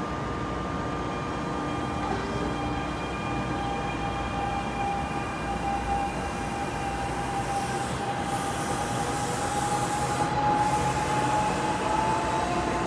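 NJ Transit passenger train rolling past the platform: a steady rumble of wheels on rail with a high whine that rises slightly in pitch and grows a little louder near the end.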